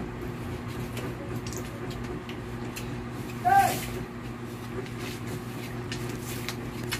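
Faint clicks and handling noises of people eating fruit at a table, over a steady low hum. About three and a half seconds in, one short vocal sound bends up and down in pitch.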